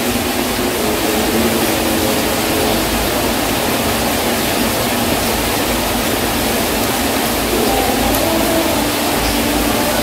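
Heavy rain pouring steadily, an even, loud hiss that drowns out the room.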